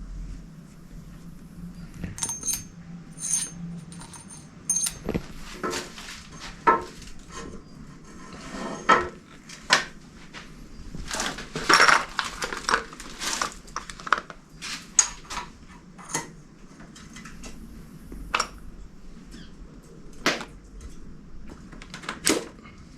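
Irregular metallic clinks, taps and knocks of hand tools and bicycle parts being handled and fitted during a bike rebuild, some louder knocks around the middle.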